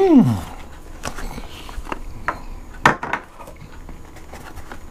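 A short vocal sound that rises and then falls in pitch, then a few light knocks and rustles of cardboard slider boxes being handled on a table, with the sharpest knock near three seconds in.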